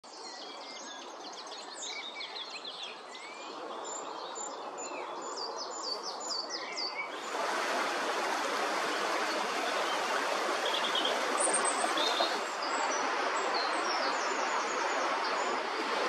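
Small birds singing and calling, many quick high notes, over a quiet background; about seven seconds in it cuts to the steady, louder rush of a flowing river, with a few bird chirps still heard over it.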